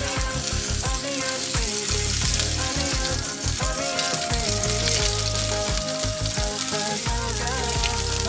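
Sirloin steak sizzling steadily as it sears in hot oil in a nonstick frying pan.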